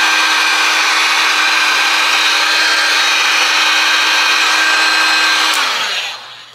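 Handheld electric heat gun blowing hot air to shrink heat-shrink tubing over soldered connector joints, with a steady fan-motor hum under the rush of air. About five and a half seconds in it is switched off and the fan winds down, its hum falling in pitch.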